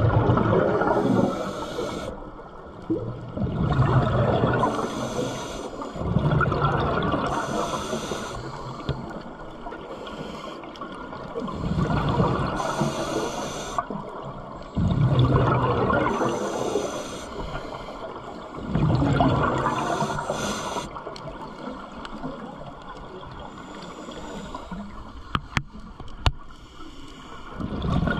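Scuba diver breathing through a regulator underwater: a rush of exhaled bubbles every four seconds or so, with a thinner hiss on each inhale between them. Two sharp clicks near the end.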